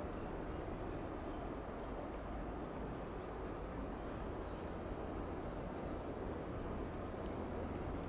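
Steady low background rumble of outdoor ambience, with faint, very high bird chirps: a short cluster about one and a half seconds in, a quick trill of several notes around the middle, and another short cluster about six seconds in.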